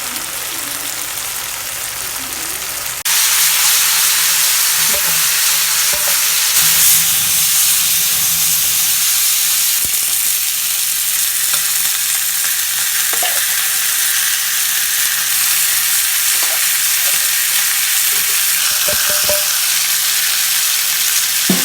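Giant trevally fish steak sizzling in hot oil, a steady hiss that grows louder about three seconds in, with a few light clicks.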